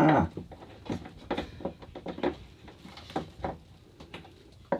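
Scattered small knocks, clicks and rustles of a hand groping about inside a boat's waste holding tank through its opened access hatch.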